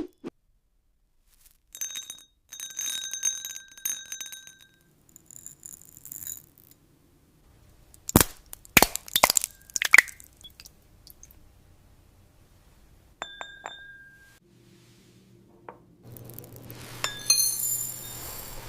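Glass clinking and ringing: ringing glass tones near the start, a run of sharp knocks in the middle, and denser ringing clinks near the end.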